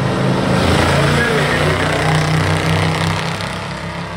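Engines of several racing pickup trucks running hard as they pass close through the turn, loudest about a second in and easing toward the end.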